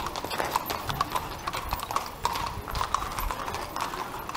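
Horse hooves clip-clopping on an asphalt street, the hoofbeats of several horses pulling carriages overlapping in an irregular patter.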